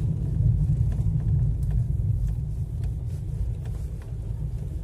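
Low, steady rumble of a car's engine and tyres on the road, heard from inside the moving car's cabin.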